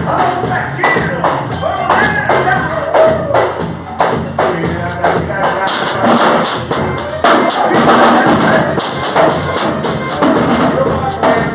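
Music: a song with a singing voice over a steady drum beat, with drum kit and tambourine-like percussion.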